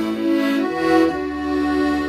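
Accordion playing a slow melody, one held note giving way to the next about every half second over a sustained lower accompaniment.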